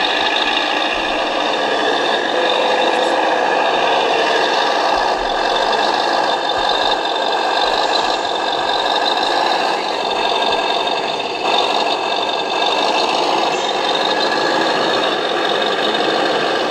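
Simulated diesel truck engine sound from radio-controlled model trucks' electronic sound modules, played through small speakers: a steady running and idling sound with a knocking edge, continuous with no break.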